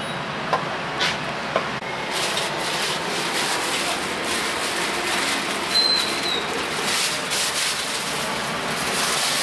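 A meat cleaver knocks three times on a wooden chopping block, then a steady rough scraping and rustling with many small clicks runs on against street noise.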